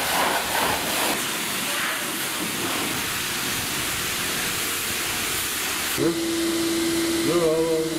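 High-pressure washer spraying water onto a mud-caked scooter, a steady hiss. About six seconds in, a steady hum starts under the spray.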